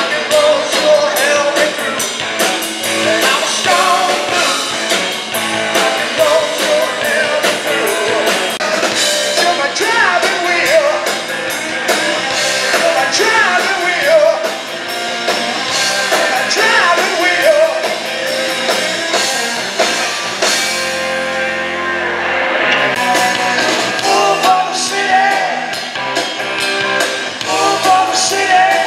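Live rock band playing: electric guitars, bass guitar and drum kit with a lead vocal singing over them. About two-thirds of the way through, the drums and cymbals stop for about two seconds under a held note, then the full band comes back in.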